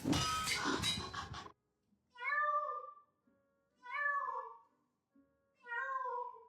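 A domestic cat meowing three times, each meow just under a second long and rising then falling in pitch, with short pauses between them. A brief burst of other noisy sound comes before them at the very start.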